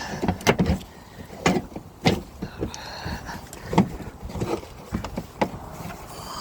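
Something behind the car's front tire being pried loose: irregular clicks, knocks and scrapes of the part and the prying tool.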